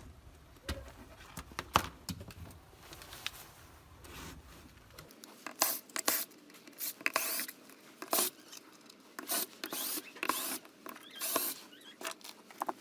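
Irregular clicks, scrapes and short rasps of a Marshall Stanmore Bluetooth speaker's casing being taken apart by hand, sparse at first and busier from about five seconds in.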